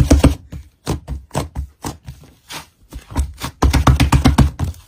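Thick white slime squeezed and pressed under fingers, giving quick crackling pops and clicks. Two dense runs of pops fall at the start and about four seconds in, with scattered single clicks between them.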